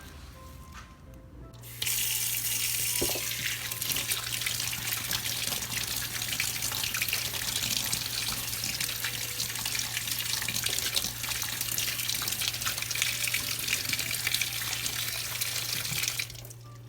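Tap water running hard into a sink with a steady rush. It is turned on suddenly about two seconds in and shut off shortly before the end, with a low steady hum under it while it runs.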